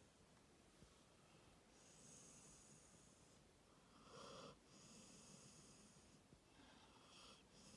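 A sleeping dog's faint snoring breaths, slow and regular about every second and a half, the loudest a little past the middle.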